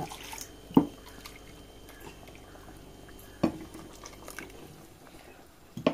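Thin coconut paste and water poured from a mixer-grinder jar into curry in a clay pot, with sharp knocks about one second and three and a half seconds in.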